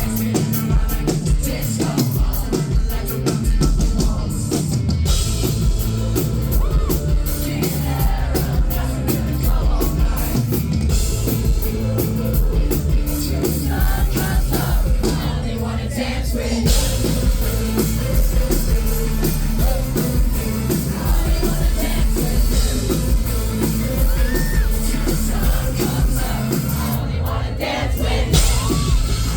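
Indie pop-rock band playing live with drum kit, heavy bass and vocals, with some crowd noise mixed in.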